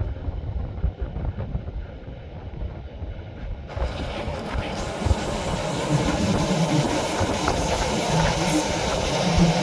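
Rhaetian Railway narrow-gauge train running, heard from on board: a steady rush of running noise and wind that turns suddenly louder and brighter about four seconds in.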